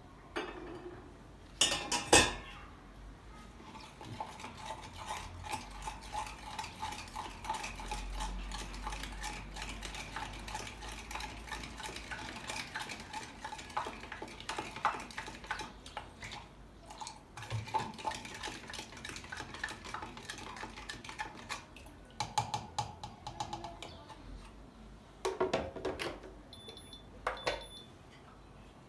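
Dishes and cutlery clinking and scraping with stirring, with a few louder clatters about two seconds in and again near the end.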